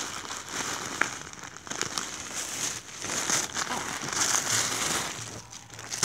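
Clear plastic packaging crinkling and rustling as it is handled, with one sharp click about a second in.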